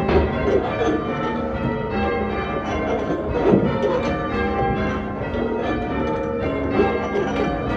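A ring of five church bells being rung in changes, a Doubles method, with bell strikes following one another in a continuous run and their tones ringing on over each other.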